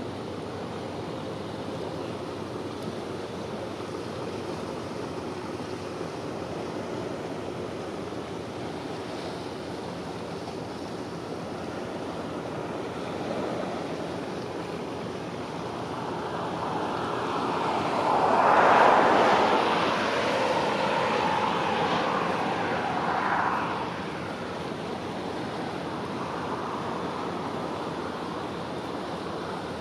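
Steady outdoor rush of wind and water, swelling to a louder rush with a wavering tone for several seconds around the middle.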